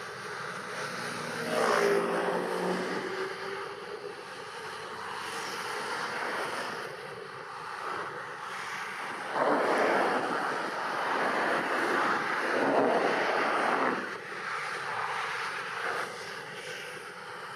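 Steady outdoor noise with wind on the microphone, swelling louder for several seconds from about halfway through. About two seconds in, a passing engine hums with a falling pitch.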